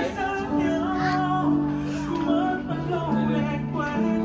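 Background music: a song with a woman's singing voice over plucked guitar.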